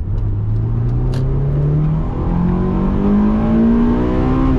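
Honda S2000's JDM F20C four-cylinder engine accelerating hard under throttle, its pitch climbing steadily as the revs rise.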